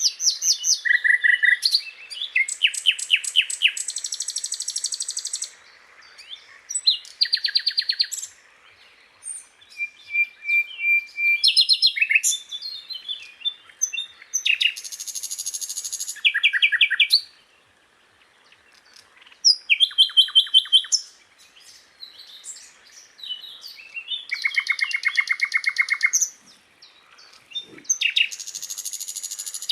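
Sikatan londo, a flycatcher, singing: a run of varied phrases of rapid, evenly repeated high notes and buzzy trills, each phrase a second or two long with short gaps between.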